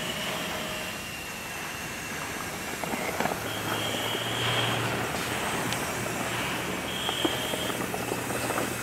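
Breathing-apparatus mask and demand valve hissing as the wearer breathes air from the cylinder, with a short whistle-like tone about every three seconds over a steady rush of air.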